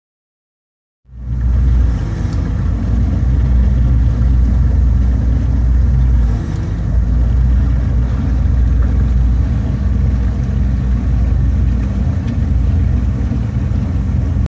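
Motorboat engine running steadily under way, a loud low rumble. It starts suddenly about a second in and cuts off just before the end.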